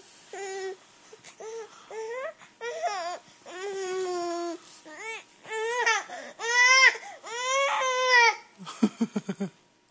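Infant fussing and crying in a string of short, bending wails, then a quick run of low, gasping sobs near the end. The baby is complaining while lying on its tummy.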